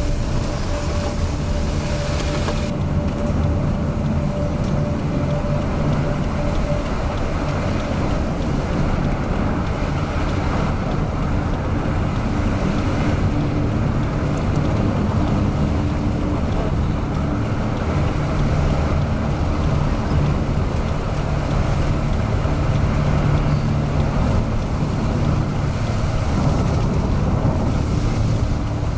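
Steady road and engine noise of a car being driven, heard from inside. A high hiss, likely wind or rain, drops away about three seconds in.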